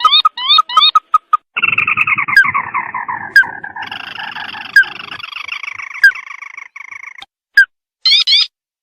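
Bird call played as a trapping lure: quick short rising notes, then about a second and a half in a long dense chattering run that slides down in pitch, with sharp clicks through it, breaking off near the end into a few short notes.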